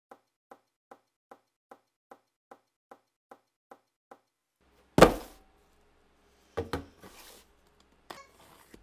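Soft, evenly spaced ticks, about two and a half a second, for about four seconds, then a loud thump on a wooden table about five seconds in. Two quick knocks with a short rustle follow, and near the end another knock as a knife is worked at a duct-taped box.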